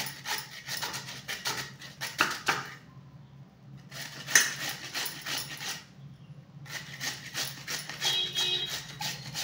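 Peeled sweet potato being rubbed over a metal hand grater: quick repeated scraping strokes, broken by two short pauses about three and six seconds in.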